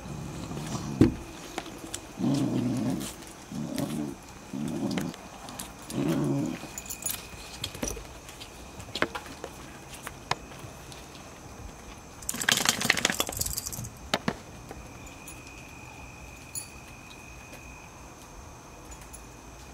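Puppies growling in rough play, a run of five short low growls over the first six seconds or so. About twelve seconds in comes a second and a half of scuffling noise.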